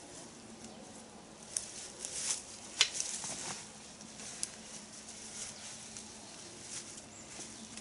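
Scattered crisp rustles and crunches of grass and soil being worked while shrub saplings are planted, the loudest cluster about two to three and a half seconds in.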